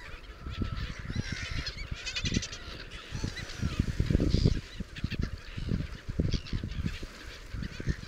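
A flock of gulls on the water calling, many short overlapping squawks and cries, with a fast rattling call about two seconds in. A gusty low rumble runs underneath and is the loudest part.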